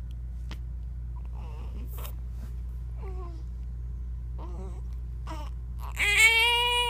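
Hiccupping: three short sharp hiccups spread out, with small squeaky vocal sounds between them, then a loud drawn-out call that rises and falls in pitch near the end.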